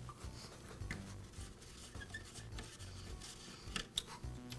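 Faint handling sounds of a screwdriver working the carbon-brush cap on a Makita table saw's motor housing. There is soft scraping and rubbing as the power cord is moved aside, and a few small clicks, the sharpest near the end.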